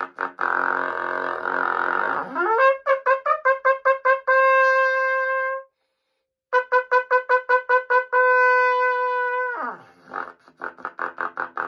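Trumpet playing a lip drill. Quick repeated tongued notes on a low pitch slur up to a high note, where more quick repeats (about five a second) lead into a long held note. After a short break the high repeats and held note come again, then a slur back down to quick low repeated notes near the end.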